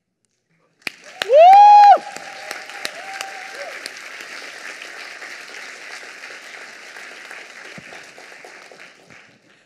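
Audience applause breaking out about a second in, with a loud, high cheer from someone in the crowd that rises in pitch and holds for about half a second, then a second, fainter one. The clapping thins and fades out near the end.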